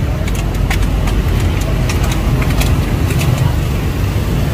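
Steady low rumble of street traffic, with short, sharp scraping clicks from a small knife shaving the husk of a young coconut, several strokes a second.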